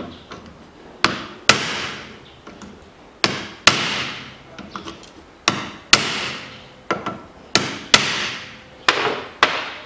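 Hammer blows on a steel socket, mostly in pairs repeating about every two seconds, each with a short metallic ring. The blows are seating and peening over the retaining washer on a drive-belt tensioner's pivot to lock it in place.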